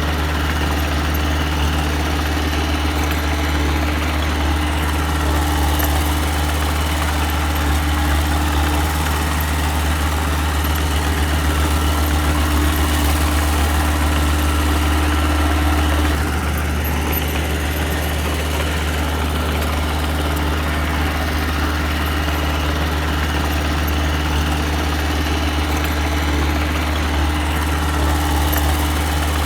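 Engine of a small earthmoving machine running steadily, with a strong low hum. About sixteen seconds in, its note changes and it drops slightly in level.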